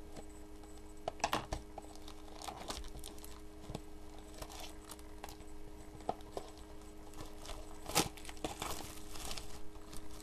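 Clear plastic shrink wrap being torn and peeled off a trading card box, crinkling and crackling in irregular bursts, busiest about eight seconds in. A steady low hum lies underneath.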